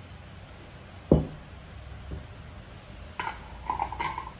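Tableware sounds as mustard is spooned from a jar onto a plate: one sharp knock about a second in, then a run of light clinks and taps of the spoon and jar near the end, with a faint ringing tone.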